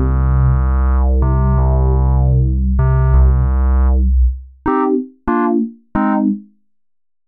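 Roland synthesizers running Juno-106 models, playing a polyphonic patch: held chords over a deep bass note that change twice and then fade, first on the System-8, followed by three short stabbed chords on the Juno-X.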